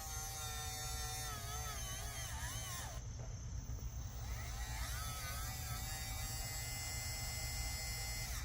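Cordless electric flaring tool's motor whirring as it forms a flare on copper line-set tubing for an HVAC connection. Its pitch dips and wobbles with the load, and it stops briefly about three seconds in, then runs again.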